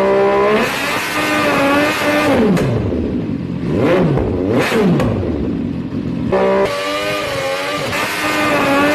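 MV Agusta F4's inline-four engine through an SC Project aftermarket exhaust, revving and running hard. Its pitch falls and climbs several times, with a few sharp cracks. The sound changes abruptly about half a second in and again near the end.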